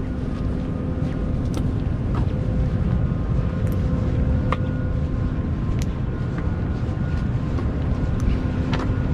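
Wind buffeting the microphone outdoors: a steady low rumble with a faint steady hum underneath and a few light clicks.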